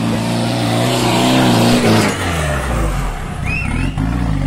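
Off-road 4x4 jeep's engine working hard under load as it climbs a dirt trail: held at high revs, then dropping lower about two seconds in and rising and falling.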